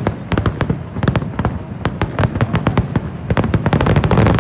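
Aerial fireworks bursting in quick succession: a dense run of sharp bangs and crackles, several a second, growing louder toward the end.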